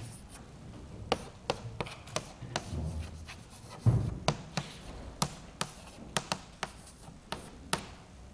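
Chalk writing on a blackboard: a string of sharp, irregular taps as the chalk strikes the board, with faint scraping between the strokes. A dull thump about four seconds in.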